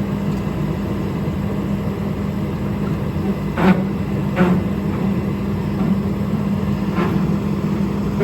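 A machine running steadily with a constant hum, and three sharp knocks or clicks about three and a half, four and a half and seven seconds in.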